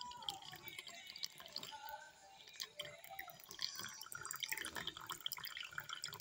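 A thin stream of water poured from a plastic bag into a clear bowl holding a little water, trickling and splashing steadily as it fills.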